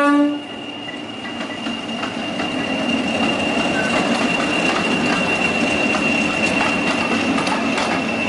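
English Electric Class 40 diesel locomotive passing with its train. The low note of a horn blast cuts off about half a second in, then the engine and wheels run on under a steady high-pitched whistle.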